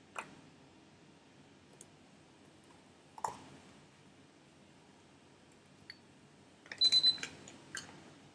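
Small sharp clicks and taps of items being handled on a work table, with a louder cluster of clicks and a short high-pitched beep about seven seconds in.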